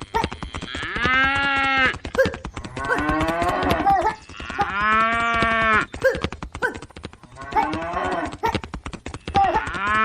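Cattle mooing: three long, steady-pitched moos about four seconds apart, with shorter calls in between, over a constant fine clicking.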